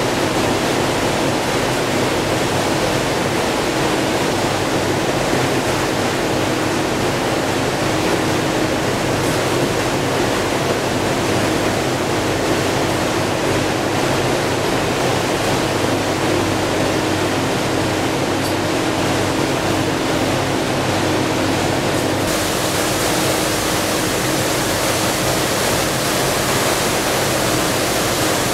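Boat under way: a steady engine hum beneath a loud, even rush of water and air. The hiss turns brighter about three quarters of the way through.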